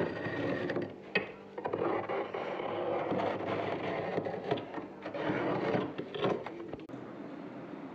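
Frost being scraped off the inside of a freezer: a rough, rasping scrape in several long strokes with a few sharp clicks, easing off near the end.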